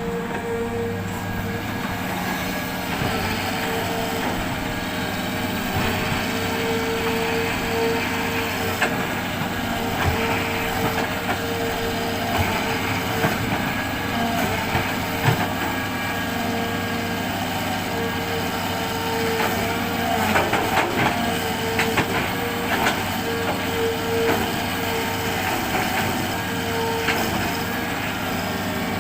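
Hitachi hydraulic excavator working: its diesel engine runs steadily with a constant whine, with scattered knocks and a spell of clattering about two-thirds of the way through as the machine loads sand.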